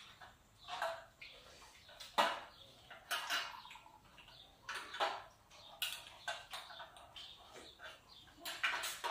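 Spoons clinking and scraping against soup bowls during a meal, in short scattered sounds.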